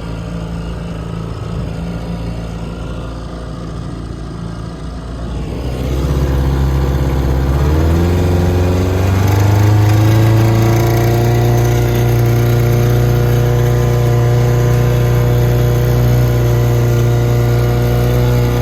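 1958 Evinrude 3 hp two-stroke outboard motor running steadily at low speed, then throttled up about six seconds in. Its pitch climbs for a couple of seconds and it settles into a louder, steady run at higher revs.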